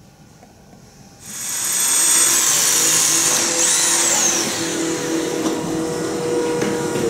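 An electric motor starts whirring loudly about a second in and runs steadily, with a high whine and a brief rise and fall in pitch near the middle.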